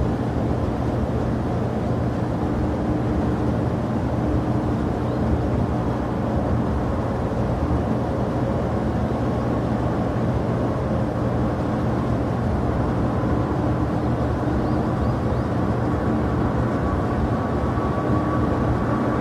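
Jet airliner engines running: a steady rumble with faint, steady whining tones over it.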